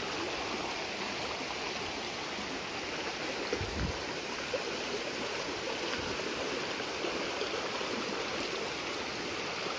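Flash-flood water rushing steadily down a swollen stream channel, muddy and fast after heavy rain upstream. There is a brief faint low bump about three and a half seconds in.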